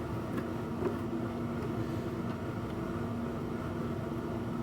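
Steady droning hum of a workshop heater running, with a constant low tone. Two faint clicks sit over it, one at the start and one about a second in.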